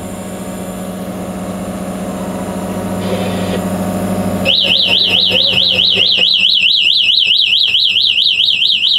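A boat's rudder-angle alarm, a loud high warbling tone, starts about halfway through and keeps sounding: the rudder is turned more than 50 degrees in heavy seas. Before it, a water maker runs with a steady low hum.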